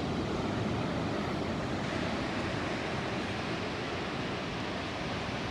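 Surf washing onto a beach, a steady, even wash of waves with no single break standing out, and some wind on the microphone.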